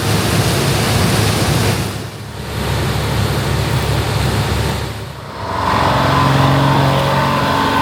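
International Harvester 1460 combine at work in corn: a diesel engine runs steadily under the broad rush of its threshing and separating machinery. From about six seconds in, a steady higher whine joins it.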